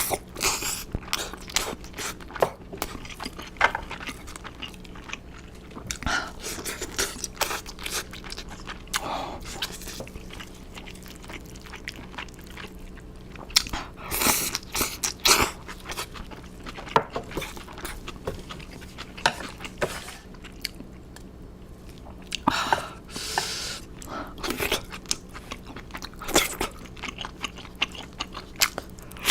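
Crunchy fried food being bitten and chewed, with irregular crisp crunches and clusters of louder crunching.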